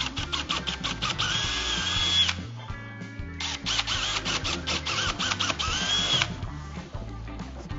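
Power drill run twice with a larger bit to enlarge a hole that was too tight: the motor whine rises, holds steady for about a second, then drops, and again from about three and a half seconds in to just past six. Background music plays underneath.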